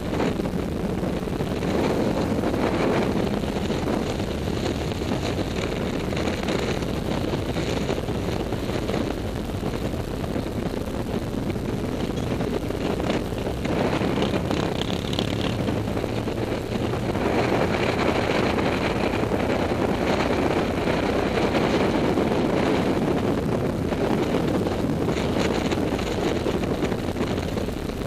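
Can-Am ATV's V-twin engine running steadily, with wind on the microphone; the engine gets a little louder about two-thirds of the way in.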